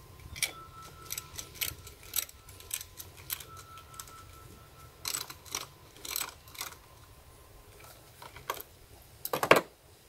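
Ratchet wrench clicking in short, irregular runs as it turns the nut on a battery tie-down. A louder knock and clatter comes near the end.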